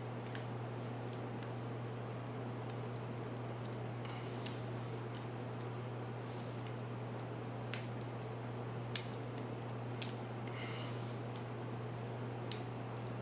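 Sparse small metallic clicks and ticks of a lock pick and tension wrench working the pin stack of a Master Lock 570 aluminium padlock during single-pin picking, a few clicks spaced irregularly over a steady low hum.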